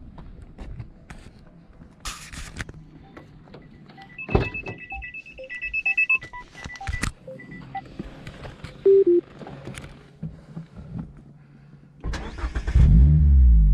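A thump about four seconds in, followed by a run of short electronic beeps. Near the end the Mazda MX-5 RF's engine, fitted with an aftermarket Cobalt exhaust, cranks and fires, flares up in revs and comes back down to a steady idle.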